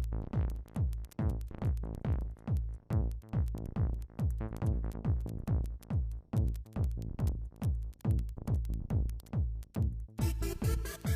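Electronic dance music (techno/trance) backing track: a stripped-back stretch of pounding, pitch-dropping kick drums and bass. About ten seconds in, a dense high synth layer comes back in.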